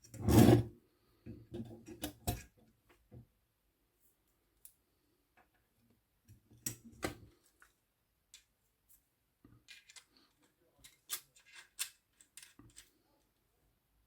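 Small metal typewriter parts and tools being handled while an Olivetti Lettera 22 is reassembled. A louder knock comes first, then scattered light clicks and taps in short clusters with pauses between them.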